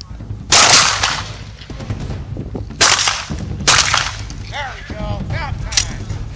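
Shotgun shots: three sharp blasts about half a second in, nearly three seconds in and a second later, each trailing off in a short echo, then a lighter crack near the end.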